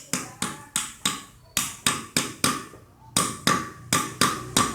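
Ball bearing being hammered into a tractor clutch assembly: a run of light hammer blows, about three a second, with a short pause twice, many of them ringing metallically.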